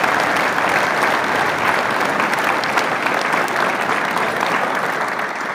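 A crowd of schoolboys applauding: many hands clapping in a steady, dense patter that begins to die away near the end.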